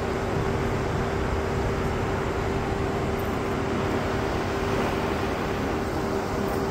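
Steady hall room tone: an even background noise with one constant low hum and no clear events.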